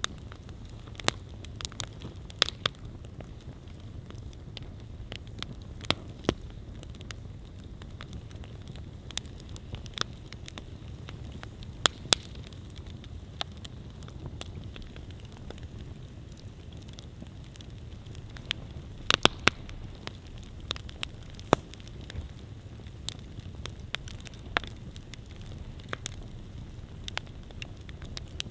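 Wood campfire burning with a steady low rush of flame and irregular sharp crackles and pops of the burning wood, which come in quick clusters here and there.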